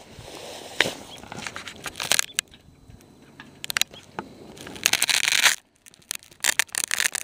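Handling noise on a handheld camera's microphone as it is moved about: irregular rustling, scraping and clicking. A louder rustle comes about five seconds in, and crackling comes near the end.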